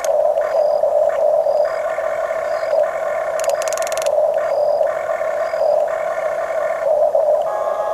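Electric motors and gearboxes of a Huina radio-controlled construction model whining steadily while working, with a higher tone that cuts in and out about once a second and a brief burst of rapid clicking about three and a half seconds in.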